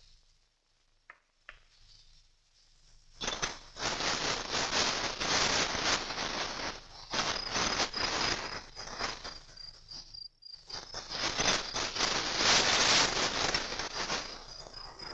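Dry hay and grass rustling and crackling as someone moves about in it. It starts about three seconds in, after near silence with a few soft clicks, and breaks off briefly about ten seconds in. A faint, evenly pulsing high tone runs over it.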